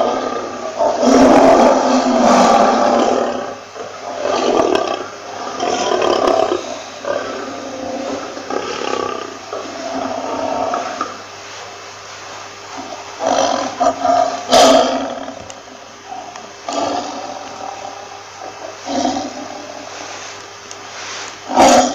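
Lion roaring: a long, loud roar about a second in, then a run of shorter roars that grow fainter. There are two sharp clicks, one about halfway through and one near the end.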